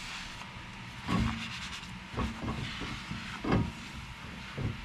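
A few short knocks and rubbing from handling and wiping a new brake rotor as it is cleaned of its factory coating, over a faint steady hiss.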